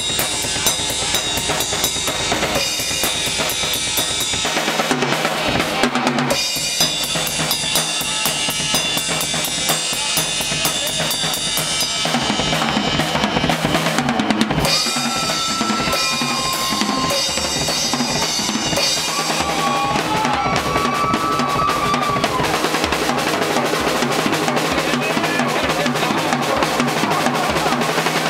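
Live funk band playing a groove, the drum kit to the fore with kick and snare driving a steady beat. A few held melody notes sound over it around the middle.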